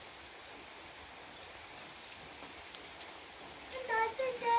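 Steady rain falling, with a few separate drops ticking. A young child's high voice comes in near the end.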